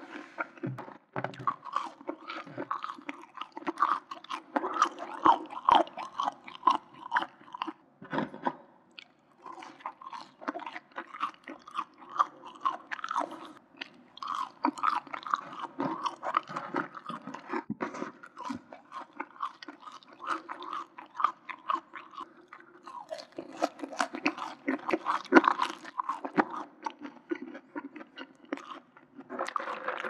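Close-miked chewing of McDonald's french fries: a dense run of wet mouth clicks and soft crunches, broken by a few short pauses between mouthfuls.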